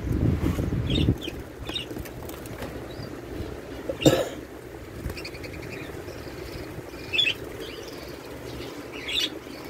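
Budgerigars chirping in short, scattered calls. A low rumble fills the first second, and there is a single sharp click about four seconds in.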